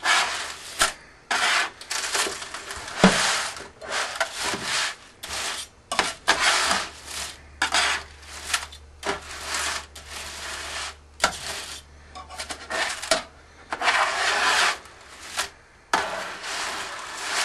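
A metal slotted spatula scraping and rolling spaghetti strands across a metal baking pan, coating them in oil, in many short rasping strokes with brief pauses between them.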